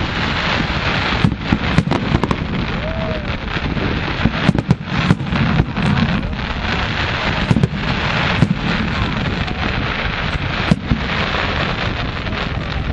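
Aerial fireworks display: shells bursting with many sharp bangs at irregular intervals over a steady, dense crackle.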